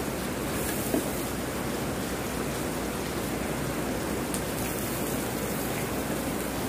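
Boneless milkfish sizzling on the hot plate of an electric Korean grill: a steady hiss, with a couple of short ticks as a spatula works the fish.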